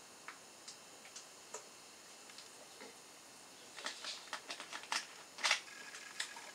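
Sporadic faint clicks, then a quick run of louder clicks and clatter about four to five and a half seconds in, the loudest near the end of the run. A faint steady high tone begins just after it.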